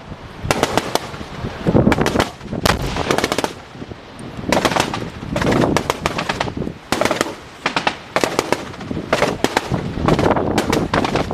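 Small-arms live fire in rapid bursts, several shots close together in each burst with short gaps between bursts, over strong wind rumbling on the microphone.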